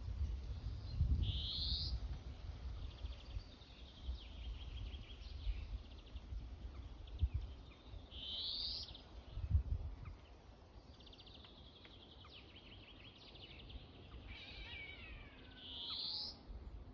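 Birds calling: a short rising call repeated three times, about seven seconds apart, with fast trills in between, over a low rumbling background noise.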